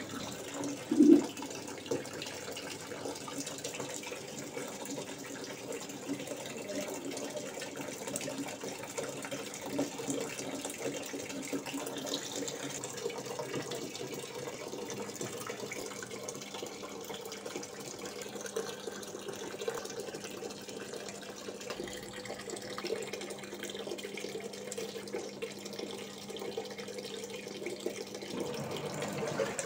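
Water pouring from the inlet into the tub of a Samsung WA80V4 top-loading washing machine as it fills, a steady splashing with a low hum underneath. A brief thump about a second in.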